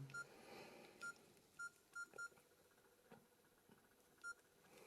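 Nokia E71 keypad tones: six short, faint beeps of the same pitch, each from a key press, at uneven intervals with two close together near the middle.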